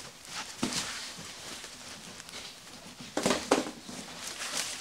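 Large cardboard box being shifted and handled: cardboard scraping and rustling, with a couple of louder sharp scrapes or knocks about three seconds in.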